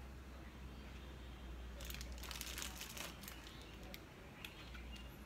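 Small clicks and a short crinkling rattle from hands fitting bus bars and terminal nuts onto the terminals of prismatic LiFePO4 cells, densest about two to three seconds in, over a low steady hum.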